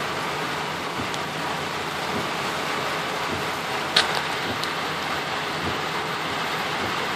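Heavy rain drumming on a car's roof and windshield, heard from inside the cabin, as a steady hiss while the windshield wipers sweep. A single sharp click about four seconds in.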